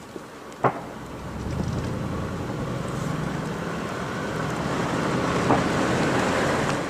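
Vehicle engine and road noise while driving, steady, growing louder about a second and a half in. A single sharp click comes just under a second in.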